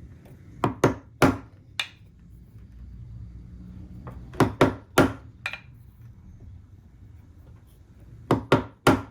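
Sharp knocks of a hand tool cutting into a wooden table leg, chipping out a shoulder for a handsaw to start in. They come in three quick groups of three or four, about a second in, about four seconds in and near the end.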